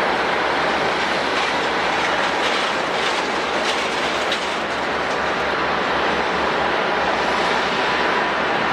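Jet airliner engines running, a loud, steady rushing noise that holds even throughout with no breaks.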